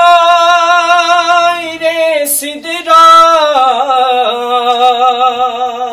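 A man's voice singing an unaccompanied devotional naat, holding long wavering notes that step down in pitch near the end.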